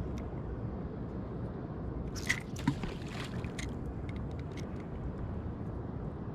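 Water sloshing against a kayak hull over a steady rumble of wind on the microphone, with a brief run of splashes and knocks a little over two seconds in.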